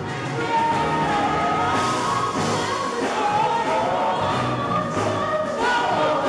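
Live gospel worship music: singers performing over band accompaniment in a large hall.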